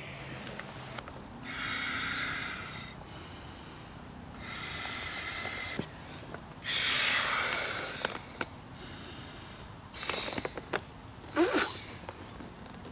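Air pushed in three long puffs of rushing air into the inflation valve of an Alpacka Curiyak packraft, topping up its tubes. Near the end come a few short squeaks of the raft's coated nylon fabric and fittings being handled.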